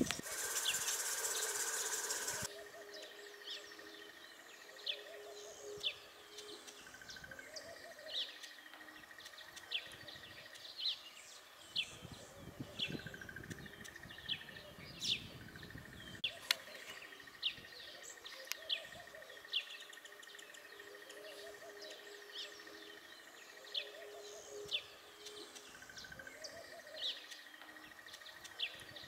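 Birds calling outdoors in many short, sharp high chirps, over a steady high insect trill and softer low calls that recur every couple of seconds. A loud hiss covers the first two seconds or so.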